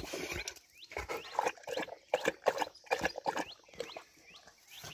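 Rottweiler breathing hard close up, tired after running: a quick, irregular run of short breaths, a few a second.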